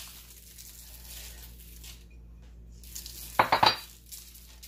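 Salt sprinkled by hand over skewered peppers and onions on parchment paper, faint. About three and a half seconds in there is a short cluster of clicks and clinks, the loudest sound.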